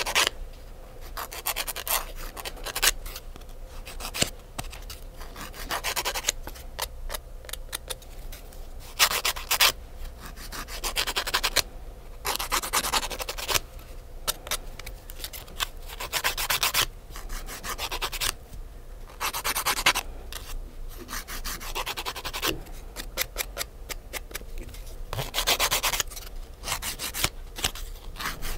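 Fingernail being filed by hand with a nail file: quick back-and-forth rasping strokes in short runs with brief pauses between.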